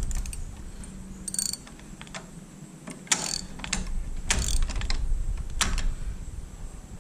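Ratchet wrench clicking in several short runs as it is swung back and forth, slowly working loose a motorcycle foot-peg bolt that has been sprayed with WD-40.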